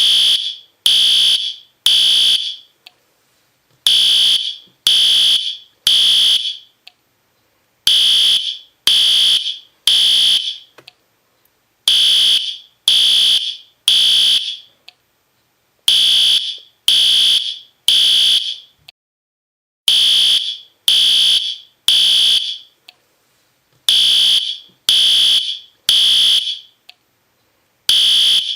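System Sensor P2R fire alarm horn sounding very loud and high-pitched in the temporal-3 pattern: sets of three half-second beeps with a longer pause between sets, the standard signal to evacuate.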